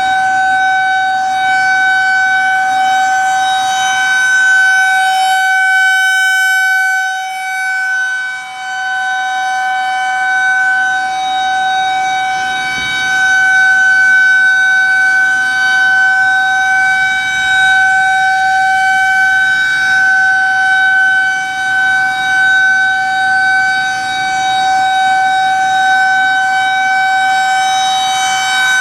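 Federal Signal 2001-130 rotating outdoor warning siren sounding a steady tone at one held pitch. Its loudness swells and fades as the rotating head sweeps toward and away from the listener.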